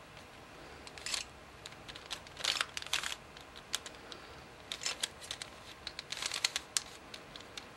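A 3x3x4 cuboid twisty puzzle being turned by hand, its plastic layers clacking in short clusters of quick clicks with pauses between the moves.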